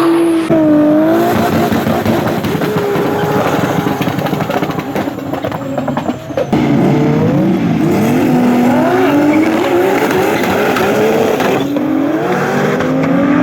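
Race car engines at full throttle, the pitch climbing and dropping back again and again as they accelerate hard through the gears. There is an abrupt change in the sound about six seconds in.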